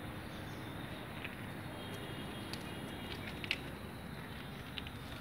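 Steady background noise with a few faint, brief clicks; the sharpest click comes about three and a half seconds in.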